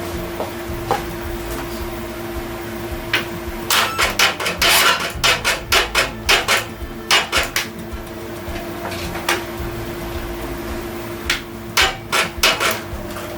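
Hand-tool work: irregular sharp knocks and taps, like hammer strikes, come in clusters over a steady low hum.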